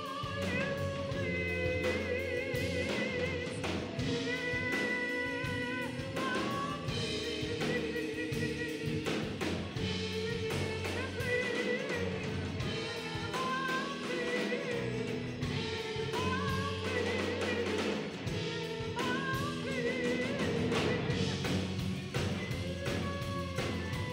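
Live rock band playing: a man singing into a microphone over electric bass guitar, electric guitar, drum kit and keyboard.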